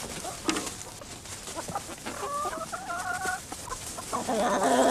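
Chickens, white hens with a rooster, clucking in their run, with one drawn-out call about two seconds in that lasts over a second.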